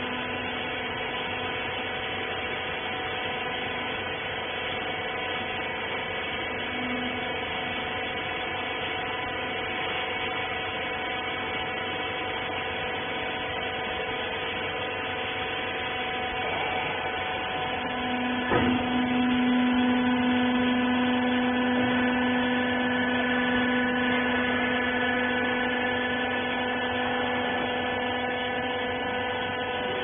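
Hydraulic 20 kg rag-bagging baler running with a steady hum made of several tones. About two-thirds of the way through there is a sharp click, and a louder low hum follows for several seconds before it eases off.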